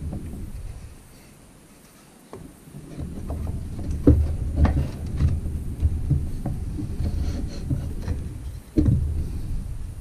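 A painted wooden whirligig bird and its wings being handled and fitted together: irregular wooden knocks and rubbing. From about three seconds in there is a low rumble of handling noise, with the loudest knocks coming near the middle and shortly before the end.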